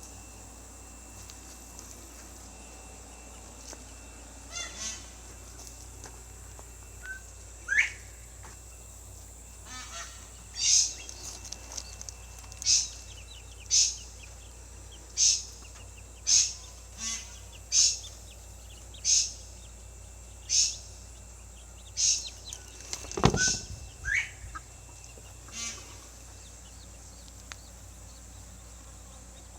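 Chicken giving loud, short squawks over and over, roughly one a second, starting about a third of the way in and stopping near the end, with a sharp knock among them.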